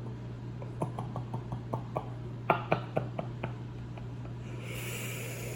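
A run of about a dozen light, quick clicks and taps, loudest about halfway through, from a hot sauce bottle being shaken over a plate of spaghetti. A soft hiss follows near the end.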